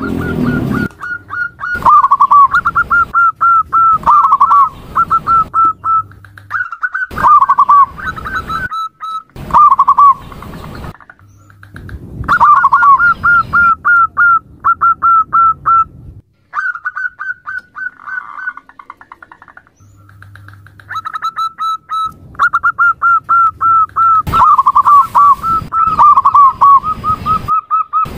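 Female zebra dove (perkutut) calling: runs of rapid, clipped cooing notes, several a second, some ending in lower dipping coos, broken by short pauses of a second or two.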